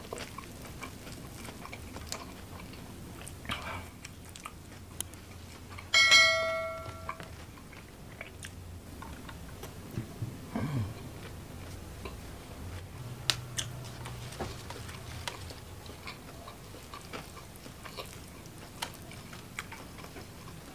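Close-miked chewing and biting of chili-coated fried chicken, with small wet mouth clicks throughout. About six seconds in, a sharp metallic clink rings for about a second; it is the loudest sound.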